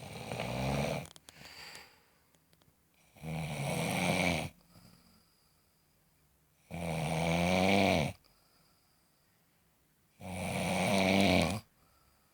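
Loud, regular snoring: four long snores about every three and a half seconds, each a rough, pitched rattle, with quiet gaps between.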